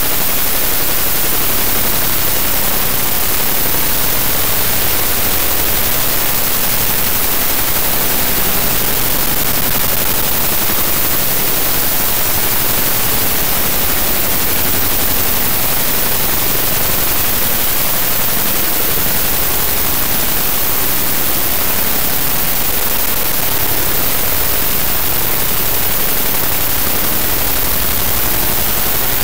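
Harsh noise music made by turning image data into audio: a loud, unbroken wall of grainy static-like hiss spread evenly from deep lows to high treble, with no melody or beat.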